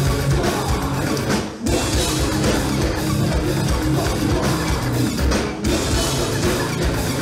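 Live metal band playing loud through a PA, with distorted guitars and a pounding drum kit. The music drops out briefly twice, about a second and a half in and again about five and a half seconds in.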